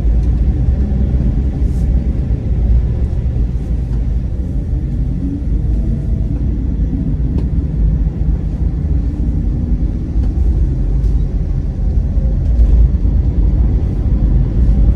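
Car on the move: a steady low rumble of engine and road noise, with a faint engine note that shifts in pitch now and then.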